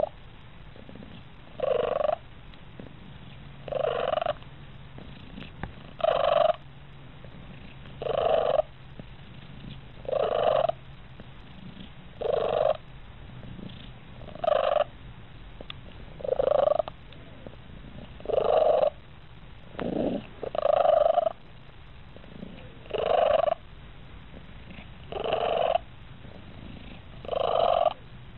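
Siamese cat lying relaxed and purring, with a loud pitched note sounding about every two seconds, each note about half a second long.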